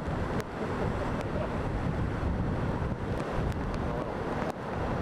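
Hurricane-driven storm surf crashing steadily around ocean pier pilings, a continuous low roar of breaking waves, with strong wind buffeting the microphone.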